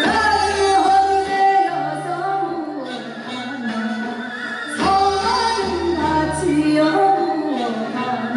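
Female voice singing Gyeonggi minyo, Korean folk song, in long held notes with a wavering pitch over instrumental accompaniment.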